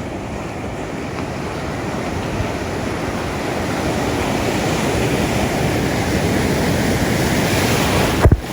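Steady rush of wind and surf with no engine-like tones, swelling slowly over several seconds, and a sharp thump near the end.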